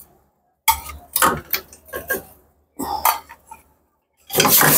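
A metal ladle scraping and clinking against a ceramic bowl as blanched chicken pieces are pushed from the bowl into a steel pot of broth, in four short bursts. A louder, steady noise sets in near the end.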